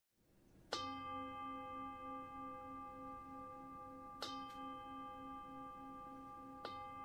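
A singing bowl struck three times, the second about three and a half seconds after the first and the third a couple of seconds later. Each strike rings on into the next, with a low tone that pulses slowly as it sustains. It marks the close of a meditation.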